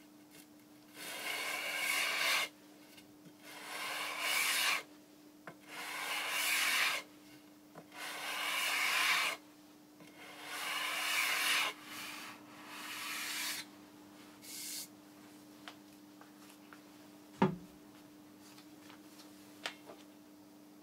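Rosewood guitar fingerboard being hand-sanded with a radius sanding block, shaping the fingerboard's curve: six long scratchy strokes and a short seventh. Then a few small ticks and a single sharp knock near the end.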